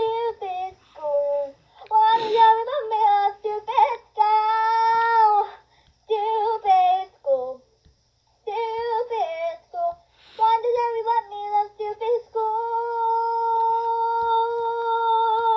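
A young girl singing unaccompanied, in short phrases with held notes, ending on one long held note.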